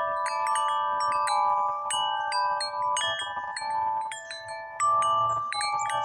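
Music of the Spheres wind chime ringing as it is stirred: tuned tubes struck again and again, their long tones overlapping and sustaining.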